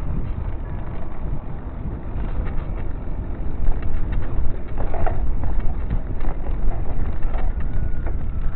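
Mountain bike rolling over a rough dirt track: a steady low rumble of wind on the microphone and tyres on the ground, with frequent small clicks and rattles from the bike jolting over the bumps.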